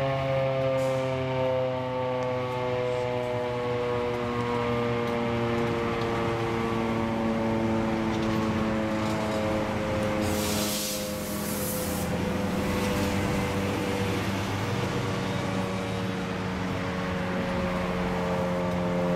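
Federal Signal Model 5 single-tone electromechanical warning siren sounding steadily in its monthly test, its pitch drifting slowly down and then steadying near the end. A brief hiss rises about ten seconds in.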